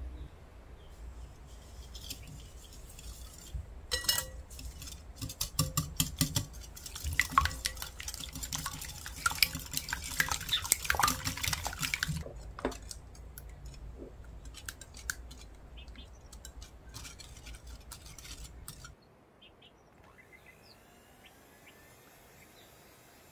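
Hand whisk clinking and scraping against a glass mixing bowl while beating eggs and sugar: rapid dense clicking for several seconds, then slower and softer strokes, stopping about three quarters of the way through.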